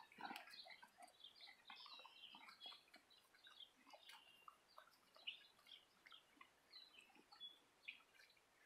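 Faint, scattered small bird chirps, mixed with soft clicks and crunches from a horse tearing and chewing grass.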